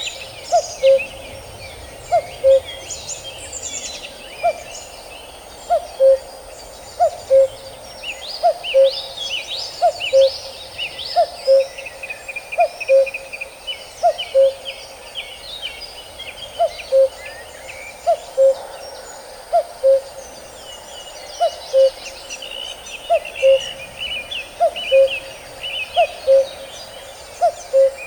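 Nature-sound phone ringtone of recorded birdsong: a low two-note call, a higher note dropping to a lower one, repeats about every second and a half over steady high chirping and trilling from other birds.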